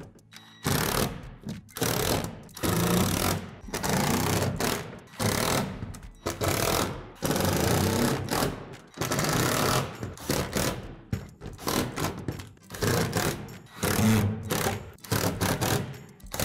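Cordless impact driver driving screws through a plastic shed gable, in a string of short bursts of rapid hammering with brief pauses between them as it moves from screw to screw.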